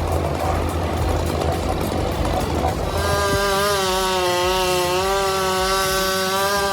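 Chainsaw engine: a rough, noisy machine rumble for the first three seconds, then a high, steady engine whine at full revs that dips in pitch near the end.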